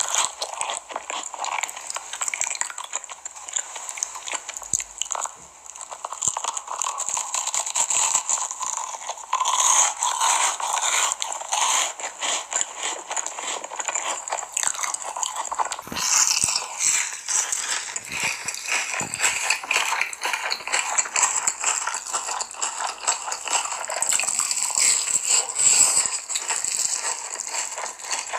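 Close-miked ASMR eating sounds: chewing and wet mouth sounds of a soft cream dessert and chocolate cookie, then, after a change about halfway through, crunchier bites of a fried hash brown with cheese.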